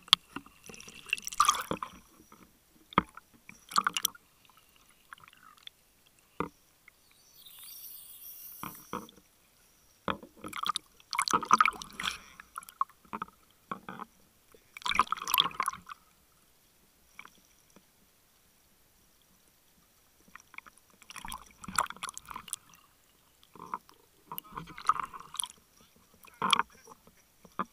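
Water sloshing and bubbling against an underwater camera at the surface, in irregular bursts a second or two long with quiet gaps between, and a short high hiss about a third of the way in.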